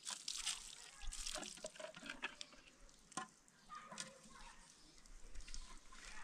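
Water poured from a plastic jug splashing onto a plastic plate, then the plate rubbed by hand as it is washed, with a few light plastic clicks and knocks.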